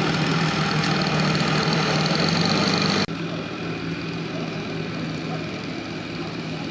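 A steady motor hum, like an engine running at idle, that drops abruptly to a quieter level at a cut about three seconds in.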